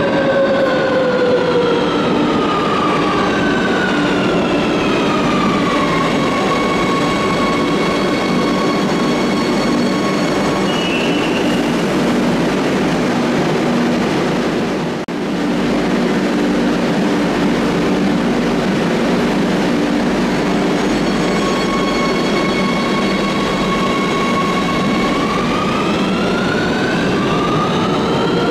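Electric metro train in an underground station: its traction motors whine in a falling pitch as it slows, then a steady hum while it stands. After a brief dip halfway, the whine climbs in pitch as the train pulls away.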